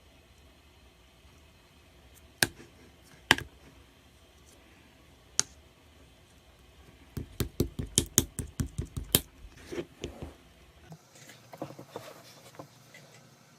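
Slime clay being pressed and poked, making sharp clicking pops: three single clicks, then a quick run of about a dozen clicks, then softer squishy crackles.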